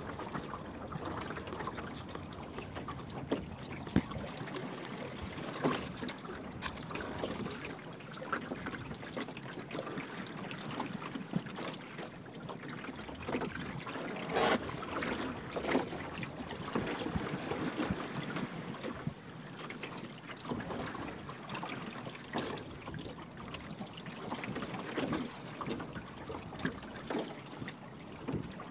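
Water lapping and splashing against the hull of a small wooden sailing dinghy under way, with irregular slaps of the chop, a few louder ones scattered through.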